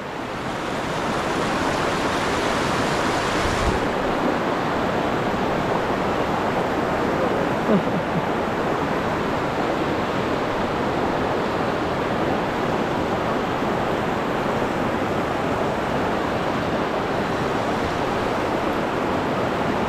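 Steady rushing of river water, an even wash of flowing current and riffles with no let-up.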